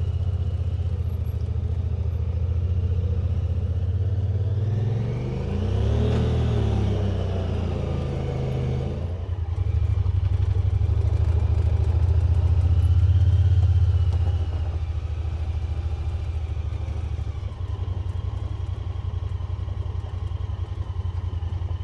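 Honda side-by-side UTV's engine running under load on a muddy hill climb. Its pitch dips and rises about five to nine seconds in, it is louder for a few seconds after that, and it settles into a steady drone near the end.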